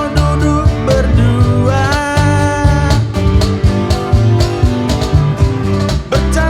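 Live band music: a full band playing a song, with guitar, bass and drums keeping a steady beat under a gliding melodic lead line.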